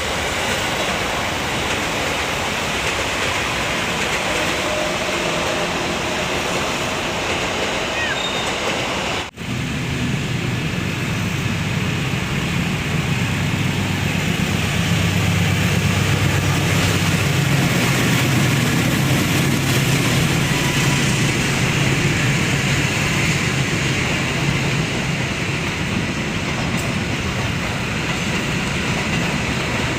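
Trains running past on the railway line: a steady noise of rolling trains, a short break about nine seconds in, then a steady low hum that grows louder a few seconds later.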